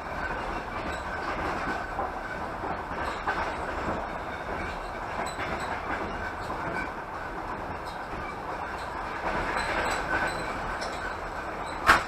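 Passenger train running along the line, heard from inside the carriage: a steady rumble of wheels on rails, with one sharp knock near the end.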